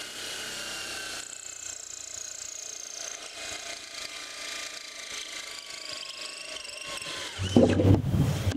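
Hilti SF 4 cordless drill driver running a multi-cut hole saw into plywood: a steady motor whine whose pitch sinks slowly as the saw bites. About seven seconds in, it turns into a much louder, rougher rattle.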